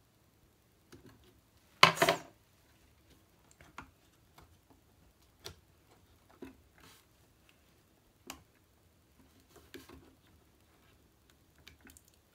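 Light clicks and taps of small hand tools and wiring parts being handled on a wooden workbench, with one louder sharp knock and brief clatter about two seconds in, then a handful of faint scattered clicks.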